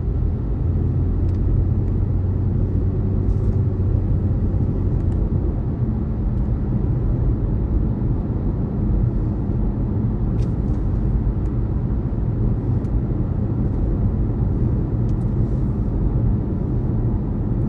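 Steady low rumble of a car heard from inside its cabin, the engine and road noise of the car running.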